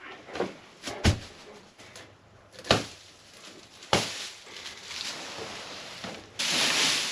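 A straw bale handled on a wooden stall's straw-bedded floor: a few sharp knocks and thumps about a second or two apart, then dry straw rustling loudly near the end as it is pulled loose.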